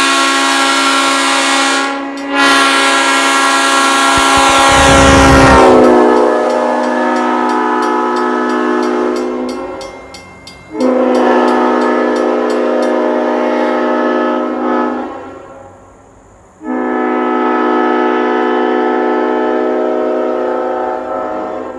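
Restored 1970 Leslie Supertyfon S5T five-chime locomotive air horn with dome-back power chambers, sounding its chord. One long blast with a brief dip about two seconds in grows loudest and rougher, then drops slightly in pitch and trails off near ten seconds. Two shorter blasts of four to five seconds each follow, with short gaps between them.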